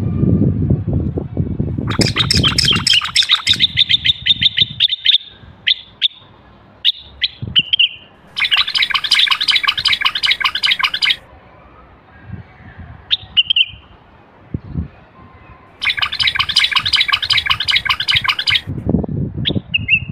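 Common bulbul calls: three stretches of rapid, harsh, buzzy chattering a few seconds each, with short single call notes between them. There is a low muffled noise at the start and again near the end.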